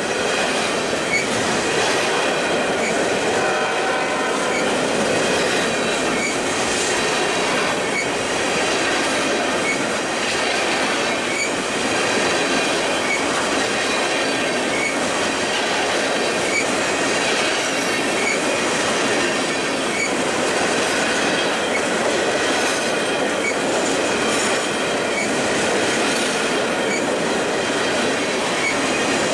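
Railroad cars of a freight train rolling by on the rails: a steady noise of wheels on track, with faint clicks at regular spacing.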